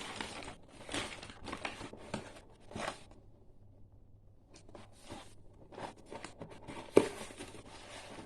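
Packaging being torn open and crinkled: a run of tearing, rustling rasps, a short lull about three seconds in, then more rustling and one sharp snap about seven seconds in.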